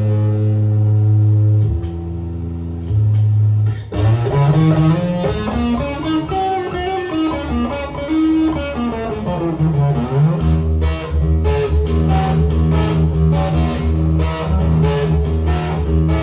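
Electric guitar layered with a Korg synthesizer that the guitar drives through its MIDI pickup. Held low notes for the first few seconds, then notes gliding in pitch, then a rhythmic run of repeated low notes from about ten seconds in.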